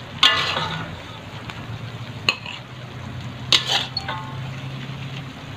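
A metal spatula scraping and clanking against a steel wok as stir-fried vegetables in thickened sauce are tossed, over a steady sizzle. Three sharp, ringing scrapes stand out: just after the start, a little after two seconds, and about three and a half seconds in.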